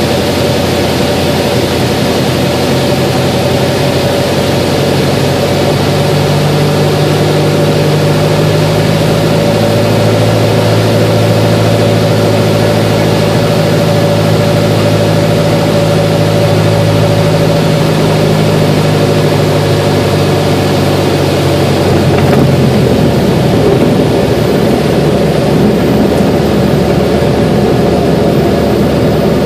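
Grumman AA-1B Yankee's four-cylinder Lycoming O-235 engine and propeller running steadily at landing power, heard from inside the cockpit with airflow noise, as the plane lands and rolls out on the runway. The engine note shifts a little past twenty seconds in.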